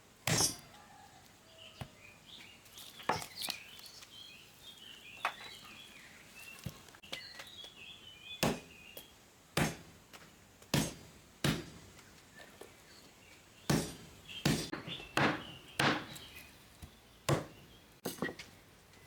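An uneven series of sharp chopping knocks, roughly one a second, with birds chirping in between.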